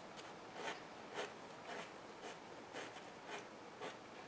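Small hand file rasping in short, faint strokes, about two a second, across the edge of a tiny model wheel to round it off.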